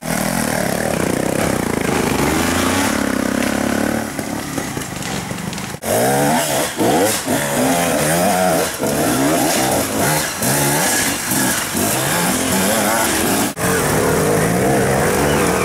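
Off-road motorcycle engines revving hard, the pitch rising and falling again and again as the bikes climb a muddy slope.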